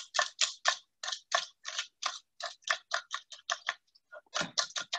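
Chef's knife chopping garlic and salt on a cutting board in quick, even strokes, about four or five a second, with a short pause near four seconds in before the chopping resumes.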